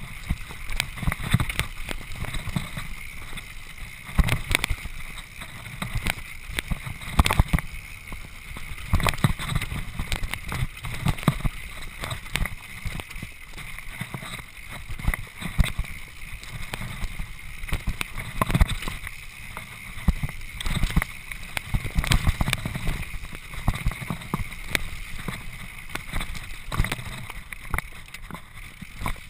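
Mountain bike riding over a rough, rocky trail, recorded by a GoPro in its case: a constant rumble of tyres on stones and dirt with frequent irregular knocks and rattles from the bike.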